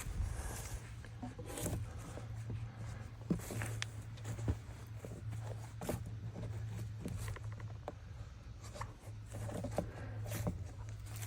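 Irregular clicks, taps and scrapes of hands and tools working on a Scag walk-behind mower's belt drive, over a steady low hum.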